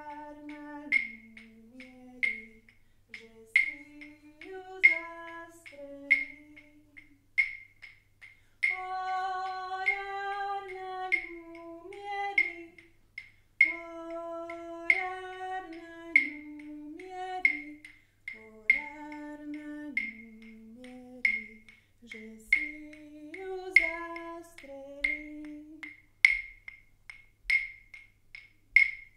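A woman singing slow phrases with pauses between them, over a steady beat of sharp, high knocks about three every two seconds. The singing stops a few seconds before the end while the knocking goes on.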